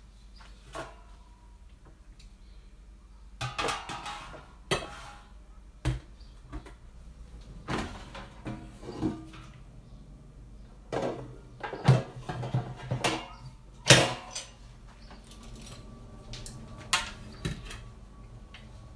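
Intermittent knocks and clatter, some with a short ringing clink, of dishes and an air fryer basket being handled in a kitchen, with quiet gaps between them.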